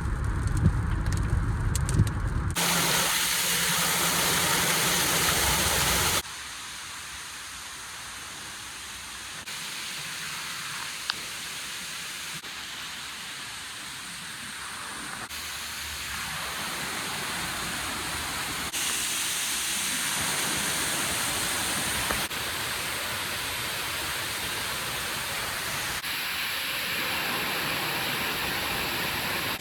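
Rushing water from waterfalls and a creek, a steady hiss that changes abruptly in level and tone every few seconds as one clip gives way to the next; it is loudest in the first six seconds.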